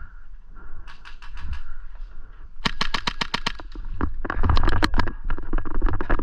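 Airsoft guns firing on full auto: a short burst about a second in, then sustained rapid fire at about ten shots a second from a little before halfway on.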